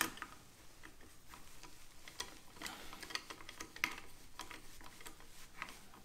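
Hand screwdriver turning a screw in a plastic-and-metal motorcycle tour pack lock housing: a run of faint, irregular clicks and ticks.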